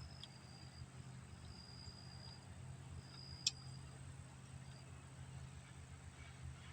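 Quiet background with a steady low hum, broken high-pitched insect trills, and one sharp click about three and a half seconds in.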